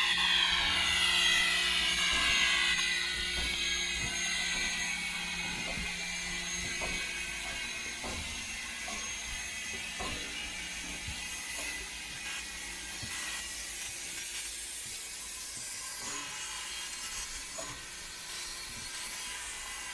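Steam locomotive letting off steam: a loud hiss that starts suddenly and slowly fades over the next dozen seconds, with a low steady hum under it for a while and scattered knocks.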